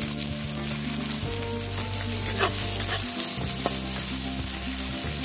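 Chopped red onions sizzling in hot mustard oil in a kadhai, a steady frying hiss, with a few sharp clicks from stirring about two to three and a half seconds in.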